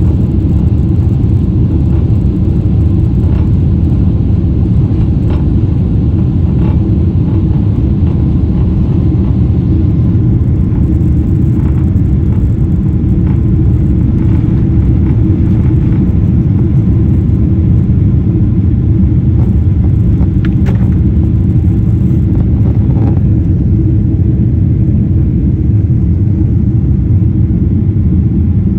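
Cabin noise of a Boeing 787-9 taking off, heard from a window seat over the wing: a loud, steady low rumble of the engines at takeoff power and the wheels rolling on the runway, carrying on into the climb. A few faint knocks sound over it.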